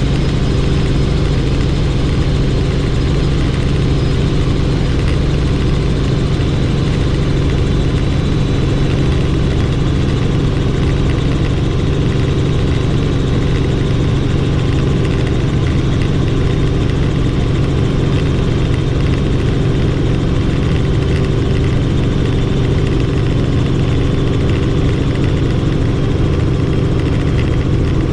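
Helicopter in flight: steady, loud drone of the engine and rotor, a constant low hum with a few higher steady tones over a hiss.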